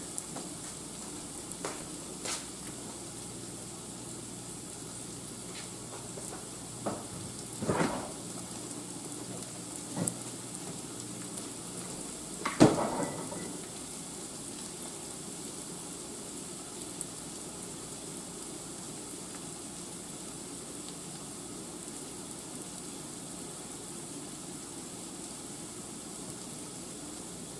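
Chopped onions and garlic sizzling steadily in a skillet on the stove. A few knocks and clatters come in the first half, the loudest about twelve seconds in.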